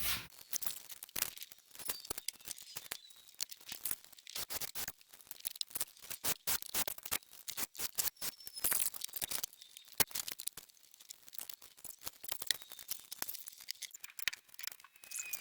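Irregular light clicks, taps and rustles of hands working with tools and parts, with one sharper click about ten seconds in.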